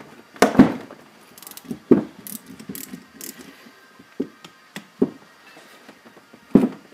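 Hand tools working on a Nissan 300ZX (Z32) brake caliper: a socket ratchet clicking and several sharp metal knocks as its 14 mm bolts are broken loose.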